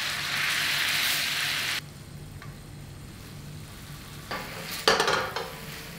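Sauce sizzling in a hot frying pan as cauliflower pieces are stirred and turned with a spatula; the sizzle cuts off suddenly after about two seconds. A shorter flurry of stirring and sizzling comes about four to five seconds in.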